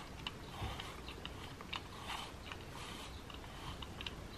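Bark Outfitters self-cleaning slicker brush with firm metal bristles being drawn through a cat's fur: repeated soft rasping strokes with small ticks.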